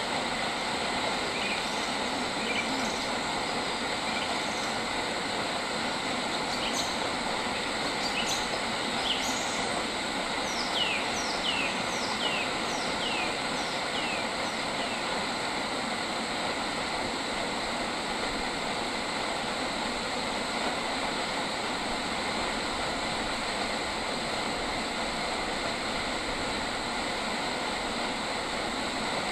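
A bird calling over a steady, dense hiss of ambient noise: a few short notes, then, about ten seconds in, a run of about six quick downward-sliding whistles.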